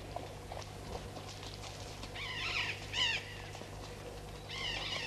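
High-pitched animal calls: two bouts of wavering cries about two seconds apart, over a steady low hum.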